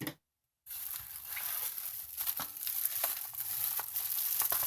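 Packaging being crinkled and rustled while the kettle's parts are unpacked, starting about two-thirds of a second in: a continuous crackly rustle with small ticks and taps.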